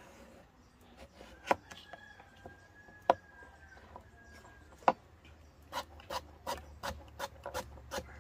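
Chef's knife cutting a carrot on a plastic cutting board: three separate sharp knocks of the blade hitting the board, then, from about six seconds in, a quick run of chops, about three a second, as the carrot is sliced into rounds.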